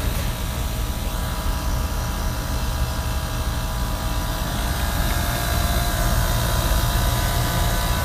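Carrier packaged heat pump running in heat mode: a steady mechanical hum from the compressor and fan, with several faint steady whining tones above it.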